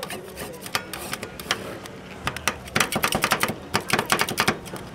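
Rapid, irregular clicking and tapping, which becomes denser and louder about three seconds in.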